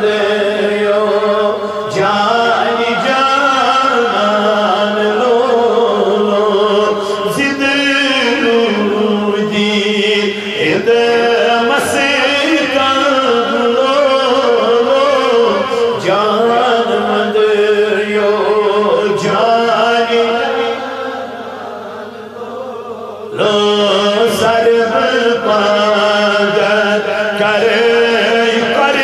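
A man chanting a Kashmiri naat, a devotional poem in praise of the Prophet, in a melodic solo voice. His voice drops away briefly about three-quarters of the way through, then resumes.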